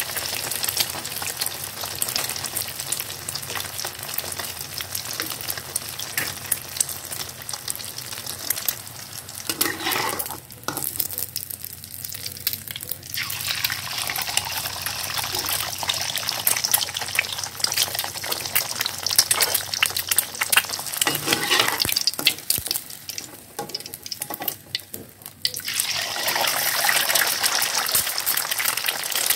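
Eggs frying in hot oil in an aluminium wok, sizzling and crackling. The sizzle dies down twice for a few seconds and flares up again, as when a fresh egg goes into the oil.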